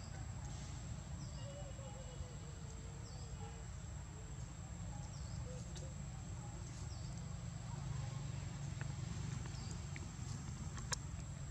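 Outdoor ambience: a steady low wind rumble on the microphone under a thin, steady high insect drone, with a short high chirp about every two seconds, five in all. A sharp click near the end.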